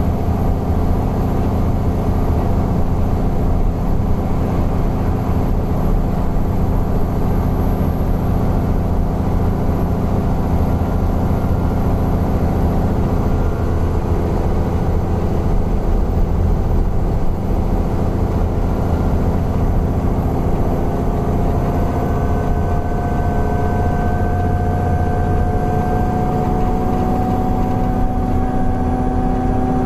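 Alexander Dennis Enviro 400 double-decker bus running with a steady engine drone. About two-thirds of the way in, a whine starts and rises slowly in pitch.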